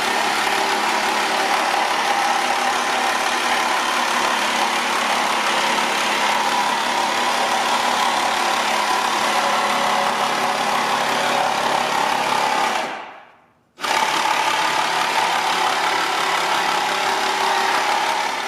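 Car engine running steadily at an unchanging pitch, with a dense hiss over it. It is cut off briefly about 13 seconds in and then picks up again the same.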